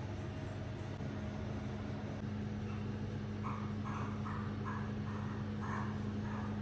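A steady low mechanical hum, with a run of short repeated calls starting a little under halfway through, about two or three a second.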